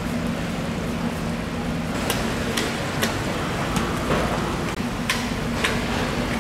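Knife work on a whole bluefin tuna lying on a wooden board: sharp clicks and knocks about every half second from about two seconds in, over a steady hum and a hiss of background noise.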